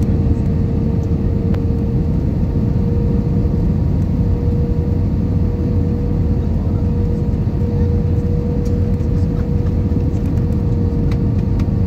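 Airbus A320 cabin noise on approach with the flaps out: a steady rumble of engines and airflow over the airframe, with a thin steady hum running through it.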